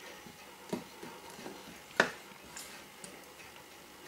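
Small metal clicks and taps from handling a Seiko 6217 automatic watch movement in its metal holder, fitting its parts. They come at uneven intervals, and one sharp click about two seconds in is the loudest.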